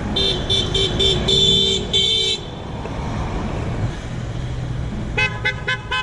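Car horn honked in a quick run of about six toots, the last two held longer. About five seconds in, a different, higher-pitched horn gives about six short rapid beeps. Road traffic rumbles underneath.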